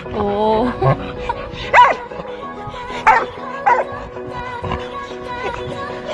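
A dog barking: three short, sharp barks, the first a little under two seconds in and two more about a second later, over steady background music.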